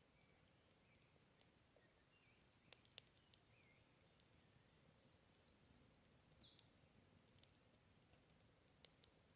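A small songbird sings one high, rapid trill of quickly repeated notes, lasting about two seconds, about halfway through. A couple of faint sharp clicks come a little earlier.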